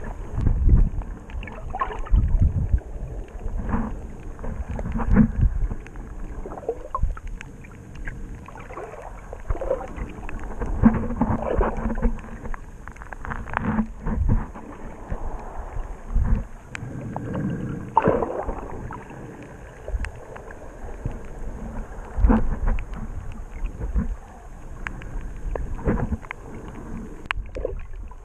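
Muffled underwater sloshing and swirling of water around a handheld camera in shallow sea, with irregular surges and soft thumps as the camera is moved.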